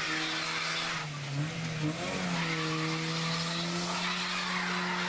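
Car doing a burnout: the engine is held at high revs while the spinning tyres screech, with a brief dip and recovery in revs about a second and a half in.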